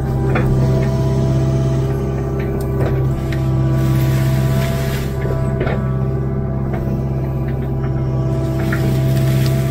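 Kubota KX057-4 mini excavator's four-cylinder diesel engine running steadily under hydraulic load, heard close from the operator's seat. A few short knocks and scrapes come as the bucket digs into the forest floor and drags brush.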